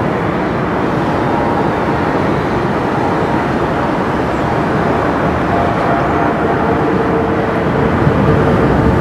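Boeing 747-400's four jet engines running at low thrust as the airliner turns onto the runway and lines up: a steady, loud jet noise. A faint whine comes in about two-thirds through, and the sound grows slightly louder near the end.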